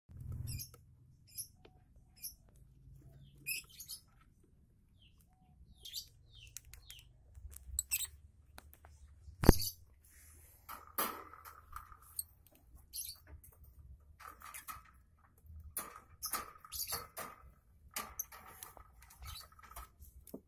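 Lovebirds chirping with short, sharp, high-pitched calls scattered throughout, with one loud knock about halfway.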